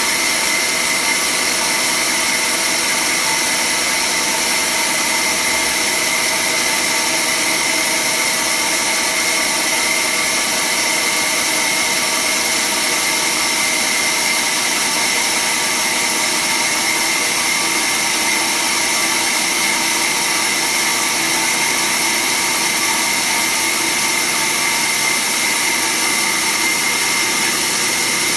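Automatic band saw running steadily while cutting sheet stock: a constant high-pitched whine with several steady tones over a hiss, unchanging throughout.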